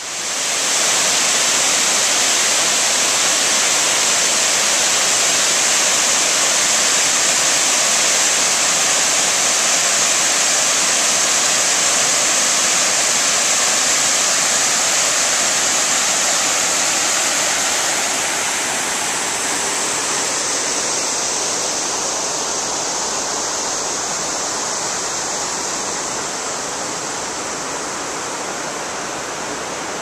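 Waterfall spilling over stone ledges into a pool, heard close up as a loud, steady rush of water. It eases off a little somewhat past the middle.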